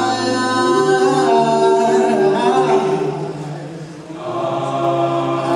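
All-male a cappella group singing held chords in close harmony over a sung bass line. The voices thin out and soften about three and a half seconds in, then swell back to full sound.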